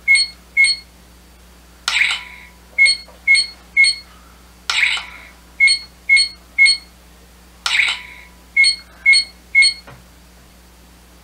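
Bandai Proplica Dragon Radar's built-in sound effects: a short burst followed by three quick high beeps, the cycle repeating about every three seconds, as its screen lights gather the dragon balls.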